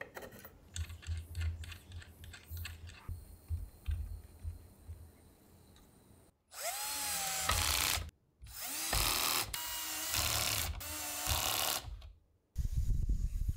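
Light clicks and knocks of an Allen key and wooden parts being fitted, then a cordless drill driving screws into a wooden plant stand in several runs of a second or two, its whine rising and falling.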